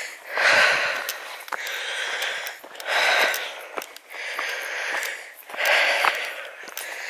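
A hiker breathing hard while walking uphill, regular breaths about every second and a half.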